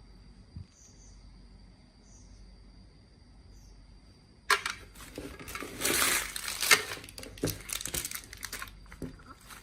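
Faint room tone, then about halfway through a sudden loud crinkling of plastic candy packaging with sharp clicks and rattles, as candy is handled before going into the meat grinder.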